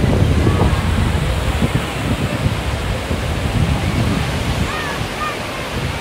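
North Sea surf breaking on the beach: a steady rush of waves, strongest at the start and easing a little toward the end, with wind on the microphone.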